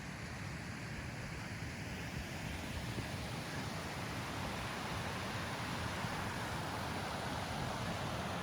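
Steady rushing of a mountain stream, growing gradually louder from about three seconds in.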